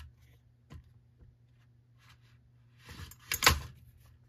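Red plastic recoil starter housing of a string trimmer being worked down onto the engine by hand: a few faint ticks, then plastic scraping and knocking with a sharp clunk about three and a half seconds in as it is pushed into place.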